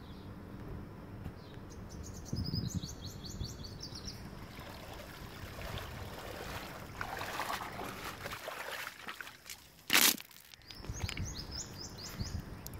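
Small birds chirping in rapid trills, in two short bursts, over a low outdoor rumble. Water sloshes around a man wading in a shallow river near the middle, and a single sharp, loud knock comes about ten seconds in.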